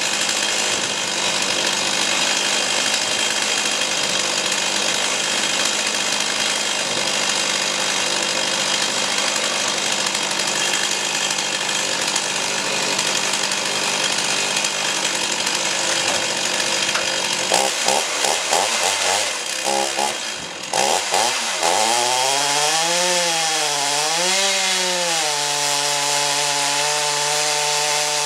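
Chainsaw on a homemade chainsaw mill cutting lengthwise through an oak log, running steadily under load. About 17 seconds in the engine stutters, then its revs rise and fall twice and settle to a steady, clearer note.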